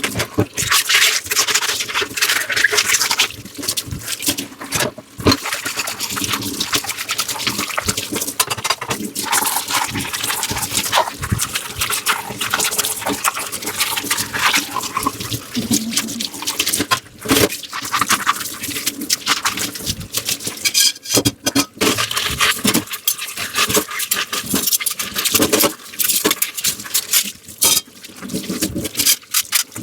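Dishes being washed by hand: rapid scrubbing and rubbing strokes on the dishes, with short clicks and light knocks of dishware and some running water.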